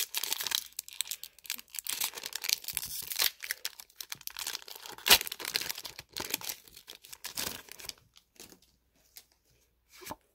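Foil Pokémon booster pack wrapper being torn open and crinkled by hand: a run of tearing and rustling with one sharp rip about five seconds in. Near the end it falls away to a few faint clicks of the cards being handled.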